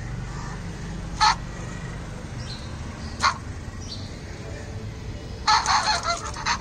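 Robot puppy toy's small speaker playing electronic dog sounds as its head is touched: two short yips, then a rapid run of panting and yapping from about five and a half seconds in.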